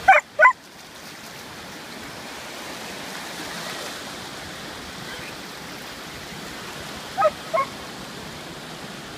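Surf washing steadily in the shallows, with a dog giving two quick, high barks at the start and two more about seven seconds in.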